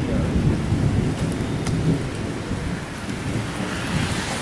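Heavy rain pouring down in a thunderstorm, with a deep rumble underneath.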